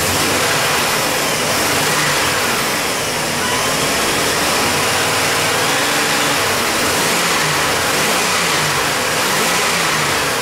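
1996 GMC truck's gasoline engine running, its speed rising and falling a little in places. It runs smoother and no longer stumbles with its distributor cap freshly cleaned; the owner thinks crust on the cap had kept it from sparking right.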